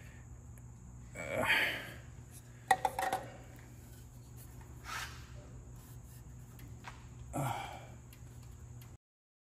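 Light metallic clinks and taps as the aluminum DCT filter cap of a Corvette C8 Z06's dual-clutch transmission is worked at by hand, with a few strained breaths of effort, over a low steady hum. The sound drops out completely near the end.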